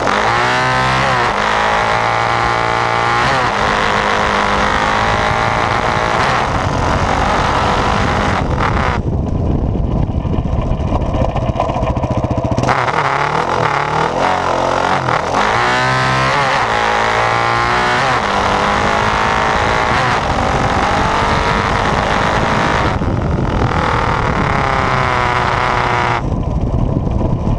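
Yamaha Raptor 700R quad's engine running under way and revving up several times, with a loud vibration buzz from the GoPro swivel mount's locking tab shaking against the mount. The buzz is loud enough to cover the normal sound of the engine, and the owner is almost positive that the free-moving tab is the cause.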